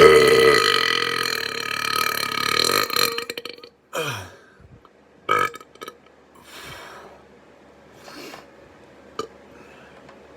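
A man's long, loud, deliberate burp, held at a steady pitch for about three and a half seconds. It is followed by a short sound that falls in pitch, a few shorter, quieter sounds, and a sharp click near the end.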